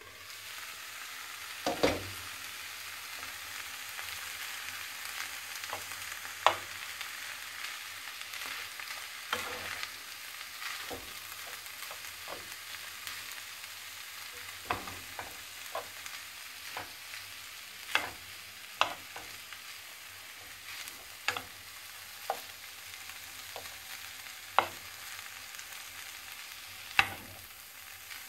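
Buckwheat with meat and carrots sizzling in a frying pan. A metal spoon stirs it, clinking against the pan many times. There is a louder clatter about two seconds in as the glass lid is taken off and set aside.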